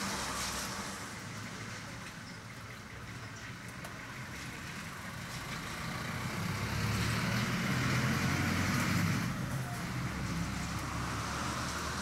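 Steady hiss of heavy rain, with road traffic behind it. A passing vehicle swells in and fades again, loudest about eight seconds in.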